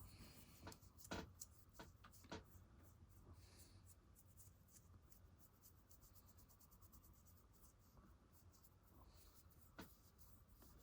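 Very faint scratching of a sculpting tool working naphtha-softened clay, with a few light ticks.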